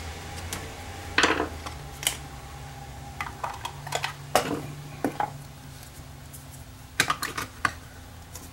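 Plastic and metal parts of a vintage Polaroid Wink-Light flash attachment clicking and knocking as it is put back together by hand. The clicks come in scattered clusters, the sharpest about a second in and a small burst near the end.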